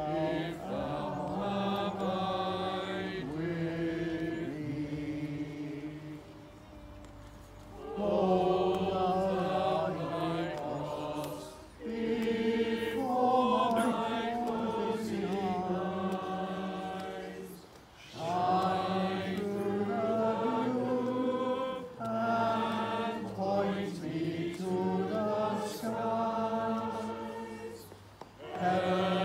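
Church choir singing together in long phrases, with short breaks for breath between them.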